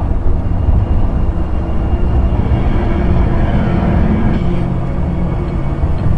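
Snowmobile engine running at a steady speed: a loud, even, low drone.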